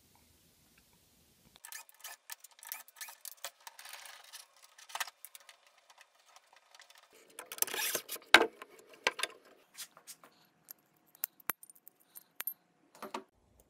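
Metal parts of a pipe clamp being handled and taken apart: the clutch plates and pipe clink and rattle in irregular clicks, with one sharp knock about eight seconds in.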